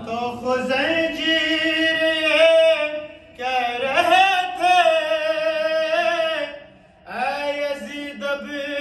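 A man singing an Urdu devotional qasida solo, in three long phrases with drawn-out held notes. No instruments are heard.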